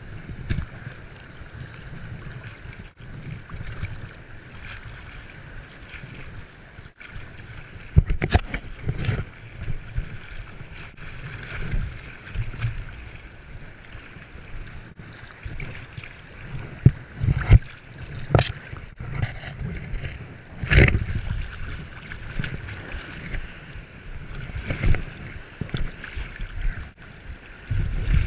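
Seawater washing and sloshing close to the microphone, with wind buffeting it and a sharp slap now and then.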